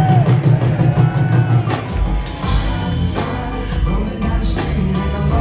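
A live reggae band playing, with a heavy bass line and a steady drum beat, heard loud through a concert PA.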